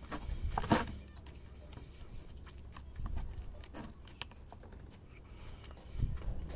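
Wooden chopsticks clicking and scraping against a clear plastic salad bowl while picking up the last of a salad: a few short sharp ticks, the loudest about a second in, over a low steady rumble.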